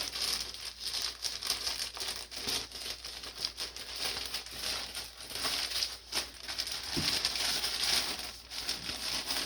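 Plastic poly bag crinkling and rustling as it is handled and cut open to get the garment out, with a sharp click about seven seconds in.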